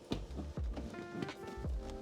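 Background music with held notes over a low beat.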